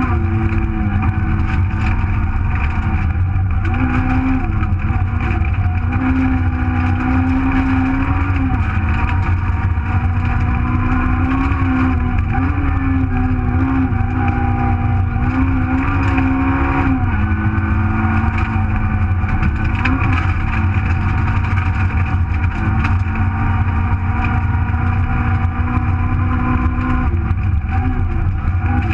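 Super1000 Nissan Micra's 1.4-litre engine heard from inside the cabin at full rally pace, revs rising and dropping repeatedly with throttle and gear changes, over a loud steady rumble.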